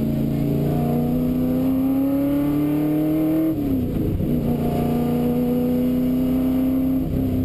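1971 Ford XY Falcon GT replica's engine heard from inside the cabin under hard acceleration on a rally stage, rising in pitch for about three and a half seconds. A quick upshift drops the pitch, then it holds a nearly steady pitch before a brief lift near the end.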